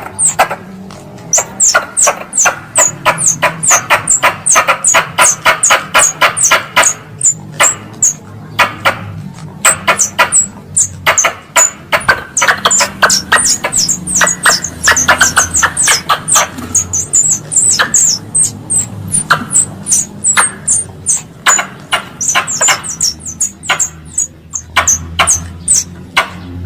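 Wild squirrel chattering lure call: a fast run of sharp chips, several a second, mixed with short high squeaky notes that drop in pitch, broken by brief pauses, over a faint low hum.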